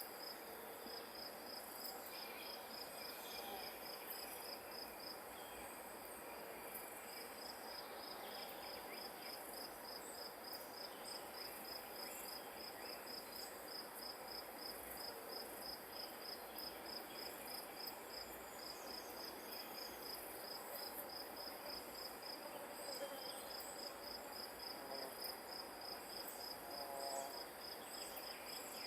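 A grass insect, a cricket, chirping in an even train of high pulses, several a second, with a short break about six seconds in, over a soft steady outdoor hiss.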